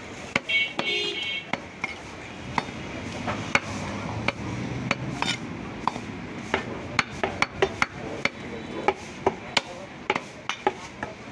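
Heavy butcher's cleaver chopping beef on a wooden stump block: repeated sharp chops at an uneven pace, coming faster in the second half.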